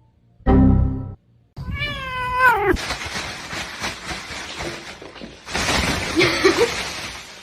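A cat meowing: one drawn-out meow about two seconds in that drops in pitch at its end, after a short loud sound just before it.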